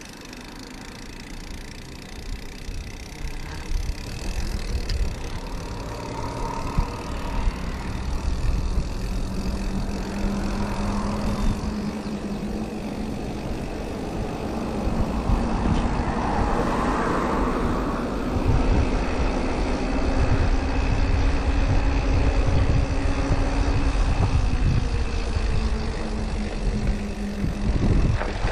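Wind rumble on the handlebar camera's microphone and tyre noise from a mountain bike being ridden, growing louder as the bike gathers speed and moves from pavement onto gravel. A low steady hum runs through the middle stretch.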